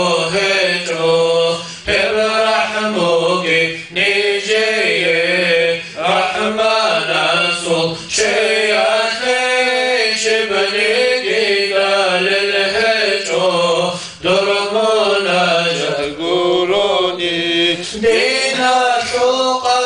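Men's voices in Islamic devotional chanting: a lead voice sings a melismatic melody in phrases while a low note is held steadily beneath it.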